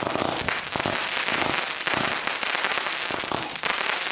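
Consumer fireworks firing a volley of rising comets with sparkling tails: a dense, continuous hiss and crackle made up of many small rapid pops.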